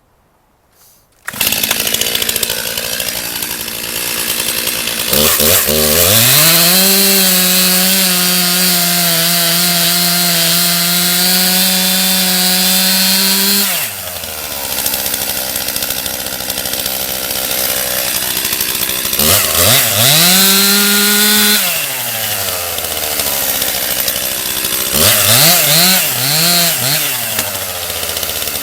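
Stihl MS 271 two-stroke chainsaw with a 20-inch bar cuts in suddenly after about a second of quiet and runs at a fast idle. It is held at high revs for about eight seconds while cutting into an oak trunk, drops back to idle, then revs up again twice more, the last time in several short pulses.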